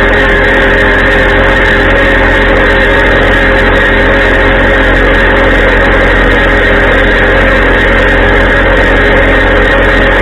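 Compact diesel tractor engine running steadily at a constant speed.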